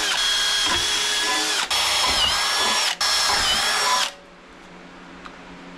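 Cordless drill drilling a hole in a steel mounting plate clamped in a bench vise: a steady high whine in three runs with two brief pauses, dipping in pitch twice, stopping about four seconds in.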